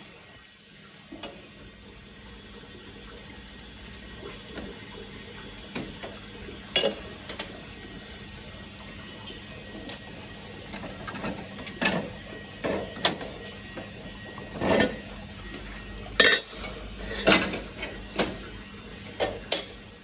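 Waterjet-cut steel brackets clinking and knocking against the wet plate and table slats as they are lifted out by hand: irregular sharp metal clinks, more frequent and louder in the second half, over a steady low hum.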